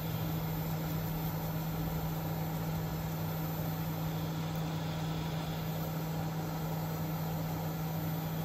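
Steady electric fan hum with a constant low drone, even and unbroken.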